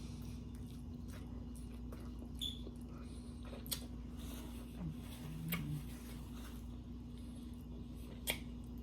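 Quiet eating: a few scattered wet mouth clicks and smacks from chewing, the sharpest near the middle and near the end, over a steady low electrical hum.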